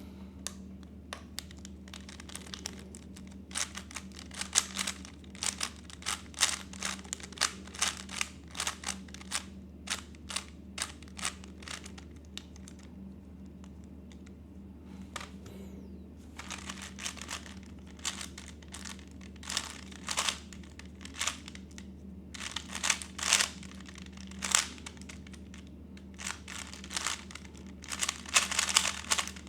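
A 3x3 speedcube being turned by hand: rapid plastic clicks and clacks in long flurries, with a pause of about three seconds about halfway through, over a steady low hum.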